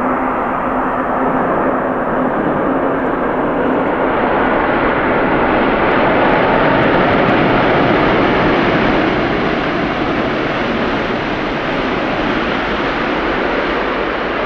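Jet noise from an Airbus A350-900's Rolls-Royce Trent XWB engines as the airliner passes. The noise grows louder and brighter, is loudest around the middle, then eases a little.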